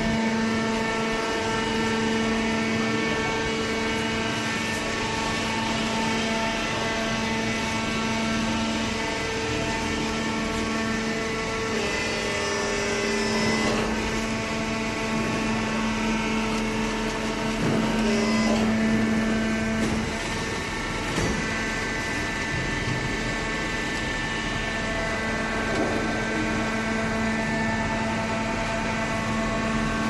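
Hydraulic baler's power unit, the electric motor and hydraulic pump, running with a steady hum. Its tone shifts a little about twelve seconds in and again around eighteen seconds.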